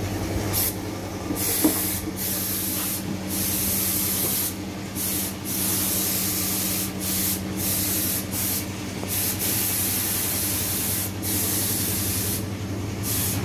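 Paint spray gun hissing in repeated bursts of one to a few seconds, cutting off briefly between passes, over a steady low hum.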